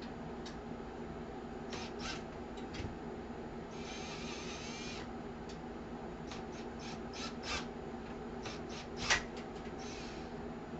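Screwdriver working a stuck screw that keeps spinning in a metal computer case instead of backing out: scattered small metal clicks and a scraping rasp about four seconds in, with one sharper click a little after nine seconds, over a steady low hum.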